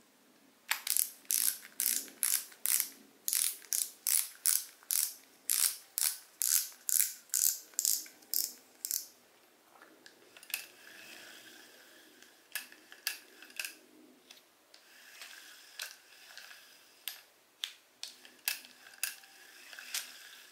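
Spinning fishing reel being worked by hand, its mechanism clicking in a steady ratchet rhythm of about three clicks a second for the first nine seconds. After that comes a fainter whirr with scattered clicks.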